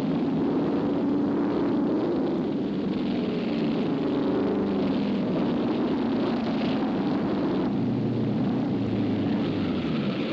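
Racing car engines running flat out, a steady drone of several engine notes over a hissy noise, with a lower engine note coming in about eight seconds in.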